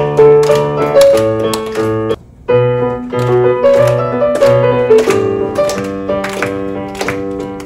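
Electronic keyboard played with a piano sound: chords over a repeating bass line, breaking off for a moment about two seconds in and then starting again.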